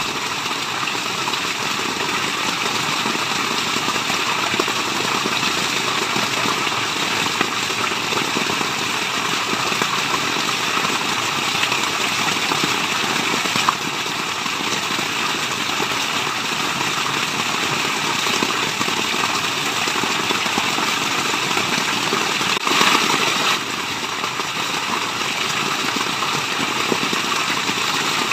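Steady rushing water, an even unbroken hiss of falling and running water. A single sharp click about halfway through, and a brief louder surge a few seconds before the end.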